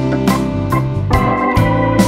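Background music: a keyboard or organ backing track with a steady beat.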